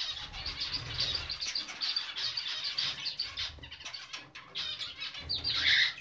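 Budgerigars chattering: a continuous fast, busy warble of chirps, with a louder call shortly before the end.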